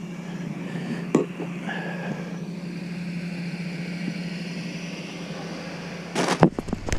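A steady low hum at one pitch, with a sharp click about a second in and a short cluster of knocks and handling clatter near the end.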